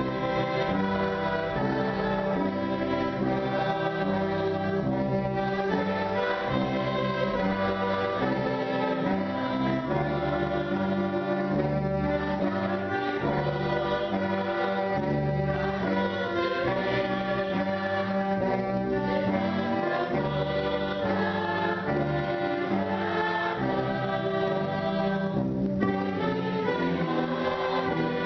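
Choir singing a hymn with orchestral accompaniment, sustained chords changing steadily.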